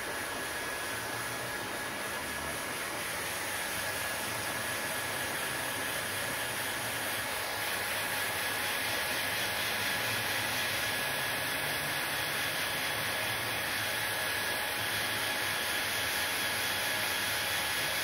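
Handheld hair dryer blowing steadily: a continuous rush of air with a faint high motor whine, a little louder from about eight seconds in.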